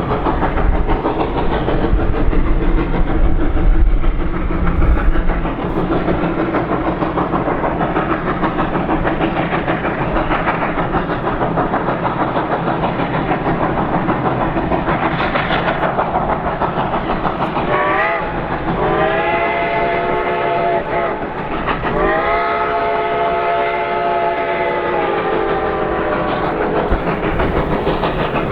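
Reading & Northern 425, a steam locomotive, running with a train, with a steady heavy din of exhaust and rolling noise. Past the middle, its chime whistle sounds two long blasts; the first opens with a short rising note.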